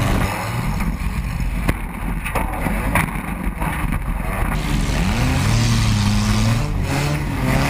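Demolition derby car engines running and revving in the ring, with a few sharp knocks early on and a steadier engine drone in the second half.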